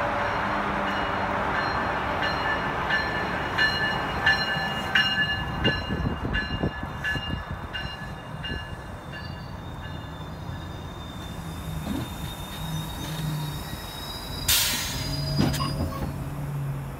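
A GO Transit bilevel passenger train pulls into the platform and slows to a stop. Its brakes and wheels give off a high, wavering squeal over the rumble of the cars, with regular clicks from the wheels. A short, sharp hiss of air comes about two-thirds of the way through, as the train halts.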